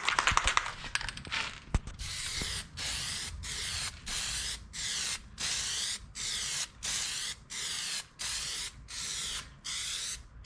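Aerosol can of Plasti Dip glossifier spraying in short, even bursts about one and a half a second, each a hiss with a brief gap between strokes. A short rattle comes first, in about the first second.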